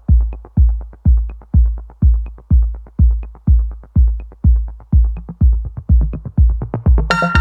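Electronic intro music: a steady kick-drum beat about two beats a second with lighter ticks between, and sustained synth chords coming in near the end.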